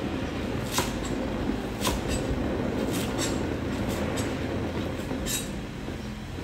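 Knife chopping spring onions on a wooden cutting board: sharp chops on the board roughly once a second, over a steady low hum.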